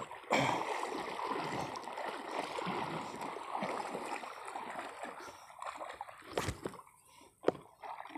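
Shallow water lapping and splashing with a steady wash that thins out about six seconds in. Two sharp clicks come a second apart near the end.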